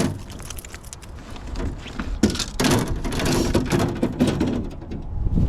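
Knocking, rattling and splashing noises from a freshly landed pickerel being handled and thrashing in a jon boat, with a louder noisy burst about two seconds in.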